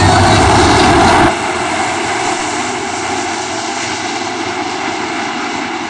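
A field of 410 sprint cars running together on a dirt oval, their methanol-burning V8 engines blending into one continuous drone. It is loudest at first and drops off sharply about a second in, then carries on steadily at a lower level.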